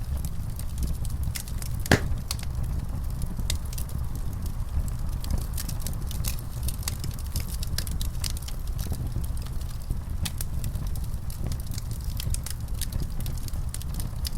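Wood fire in a fireplace crackling, with frequent small pops and snaps over a steady low rumble. One louder pop comes about two seconds in.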